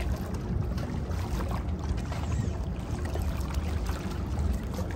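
Wind buffeting the microphone with a steady low rumble, over small waves lapping and splashing at the water's edge.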